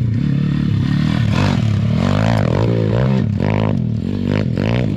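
Small single-cylinder four-stroke pit bike engine being ridden, its pitch rising and falling as the throttle is worked, with several quick revs in the second half.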